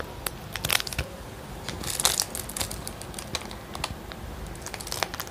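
Plastic instant-noodle packet crinkling as it is handled and held up, in irregular short rustles and clicks.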